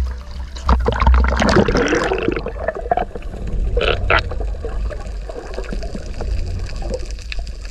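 Muffled water gurgling and bubbling around a camera held underwater, with a low rumble, scattered clicks and two short bubbly bursts about four seconds in.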